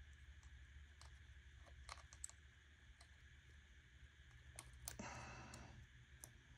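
Near silence: a few faint, scattered clicks and taps of small parts and pliers being handled, with a soft rustle about five seconds in, over a faint low hum.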